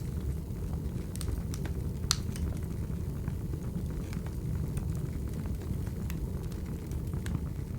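Burning firewood crackling: a steady low rumble of flames with scattered crackles and pops, the sharpest pop about two seconds in.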